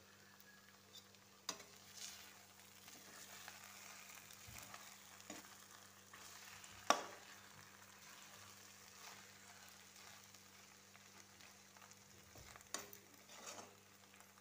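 Macaroni sizzling faintly in a metal kadhai while a spatula stirs it, with a few sharp scrapes and knocks of the spatula against the pan; the loudest knock comes about halfway through.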